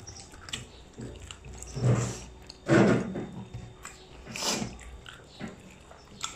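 Close-up eating sounds: chewing and mouth smacks from eating dhido and sukuti by hand, with a few short louder mouth sounds about two and three seconds in.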